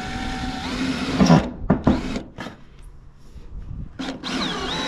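Makita cordless drill working into a corrugated steel roof sheet: it runs for about a second and a half and stops. It starts again about four seconds in, its pitch rising and falling.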